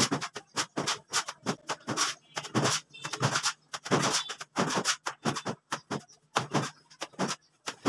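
Rapid, irregular wet slaps and scrapes of cement mortar being scooped up and flung by hand onto a concrete ceiling, several strokes a second.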